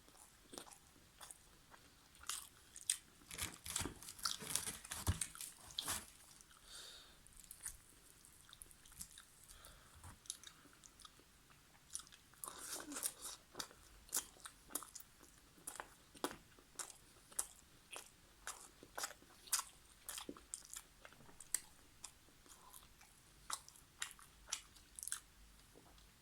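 Close-miked eating sounds: a person chewing and biting food, with wet clicks and smacks at an uneven rhythm, densest and loudest a few seconds in and again about halfway through.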